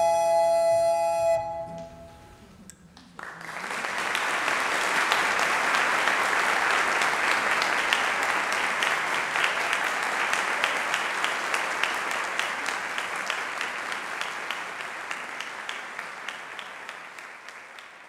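The closing chord of two recorders and harpsichord, held about a second and then dying away. After a short pause, audience applause breaks out suddenly about three seconds in and carries on, slowly fading near the end.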